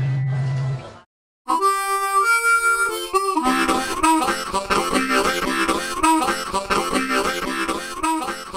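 Background music. A held chord ends about a second in, and after a brief silence a new tune starts with a few long held notes, then moves into a quick, busy passage.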